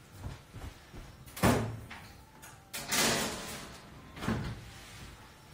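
Oven door opened and shut as a tray of cookies goes in: a knock about a second and a half in, a longer sliding rush around three seconds, and a softer knock a second later.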